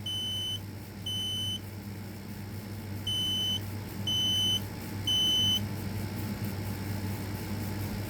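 A smoke alarm beeping a single high-pitched tone in the temporal-three alarm pattern: two beeps about a second apart, a pause of about a second and a half, then three more.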